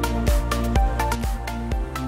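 Electronic background music with a steady beat of about four strikes a second over a held bass line.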